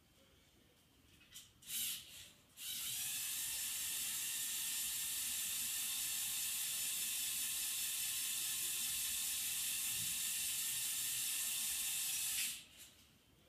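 Small electric motor and plastic gear train of a motorized LEGO Technic mobile crane whirring steadily as it lowers the outrigger legs. Two brief starts come first, then one long even run of about ten seconds that stops near the end.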